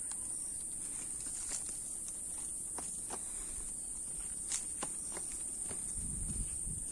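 A steady high-pitched insect drone, cicadas or crickets, with scattered light clicks and taps over it and a brief low rumble about six seconds in.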